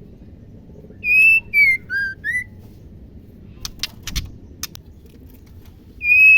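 Female white-rumped shama whistling: a phrase of four clear, pure notes, the second falling and the last rising, then a few sharp clicks around the middle and two more whistled notes near the end.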